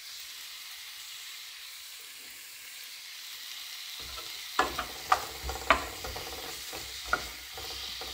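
Zucchini sizzling in a frying pan with a steady hiss. About halfway through, a utensil starts stirring them, with sharp knocks against the pan.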